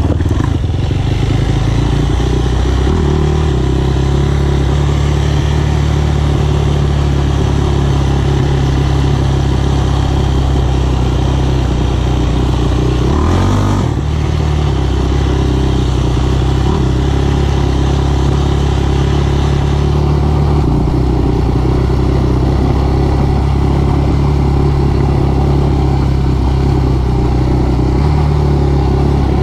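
Sport quad's single-cylinder four-stroke engine running steadily while riding, its pitch stepping up and down with throttle and gear changes, with a brief drop and rise about halfway through.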